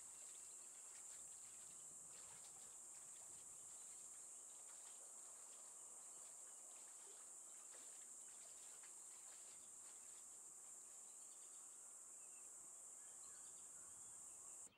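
Faint, steady high-pitched insect chorus, with a few faint bird chirps near the end; it cuts off suddenly at the very end.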